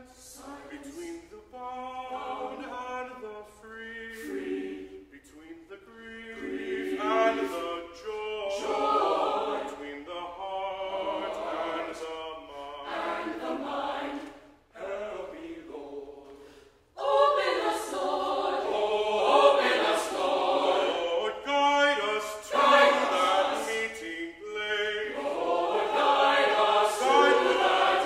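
Chamber choir singing with a baritone soloist. Just past halfway, after a brief near-pause, the full choir comes in noticeably louder and fuller.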